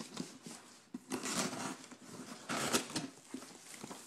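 A knife cutting the packing tape on a cardboard shipping box and the cardboard flaps being pulled open, with scraping and rustling in two louder bursts.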